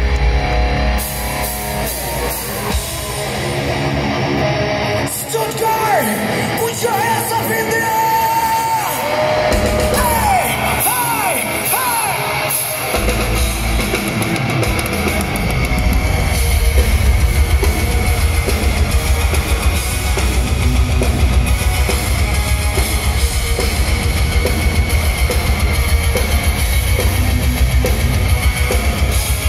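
Heavy metal band playing live, heard through the crowd: from a few seconds in, the low end thins out and a lead line with bending notes carries the song. About halfway through, the full band with pounding drums comes back in.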